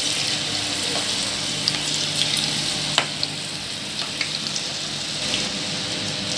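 Masala-coated snake gourd pieces deep-frying in hot oil as more are dropped in: a steady sizzle with a few scattered sharp pops.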